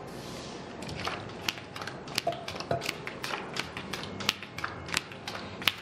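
Playing cards being dealt onto a felt blackjack table: a quick run of sharp clicks and snaps, about three a second, starting about a second in, the loudest near the end.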